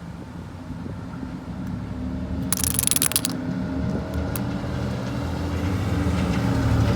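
A motor vehicle's engine rumbling, growing louder as it approaches. A short hiss sounds about two and a half seconds in.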